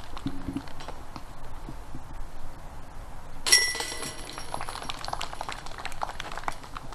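A putt hits the chains of a DiscGolfPark basket about three and a half seconds in: a sharp metallic clank, then the steel chains jingle and ring for about a second as the disc drops into the basket.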